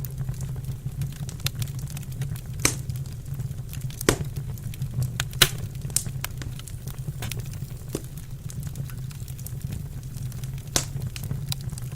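Wood fire crackling in a fireplace: scattered sharp pops and snaps over a steady low rumble, the loudest pop about five seconds in.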